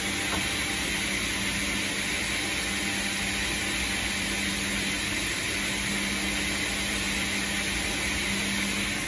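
Brandt KD 67 C edgebander running with no panel fed through: a steady hum from its motors under an even rushing hiss.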